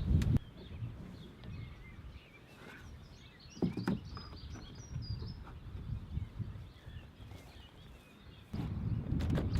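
Small birds chirping faintly, many short high notes over a low outdoor rumble, with a couple of knocks about four seconds in. Low wind buffeting on the microphone comes up sharply near the end.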